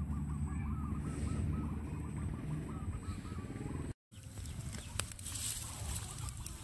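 A chicken clucking in a quick run of short calls over a steady low rumble. After a cut about four seconds in, a twig campfire crackles with sharp snaps over a high hiss.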